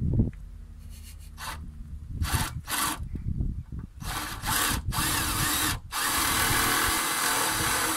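Cordless drill boring holes in the car's wheel arch: a few short runs, then one longer, steadier run near the end.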